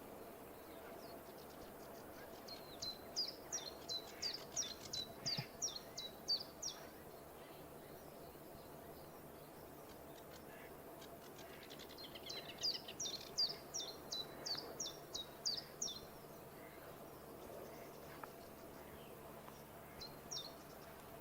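A small songbird singing: two phrases of quick, repeated, high down-slurred notes about ten seconds apart, and a brief couple of notes near the end, over faint steady background noise.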